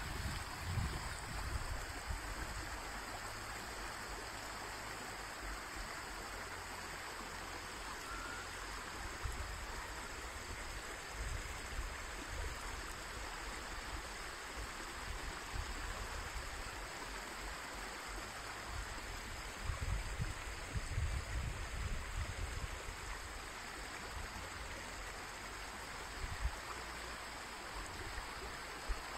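Shallow mountain brook, the Șipoaia, flowing steadily over stones. Irregular low rumbles come and go over it, near the start and again about two-thirds of the way through.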